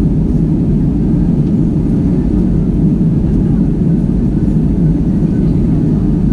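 Steady, low-pitched cabin noise of an Airbus A320-200 airliner in flight, heard from inside the passenger cabin: engine and airflow noise that holds even throughout.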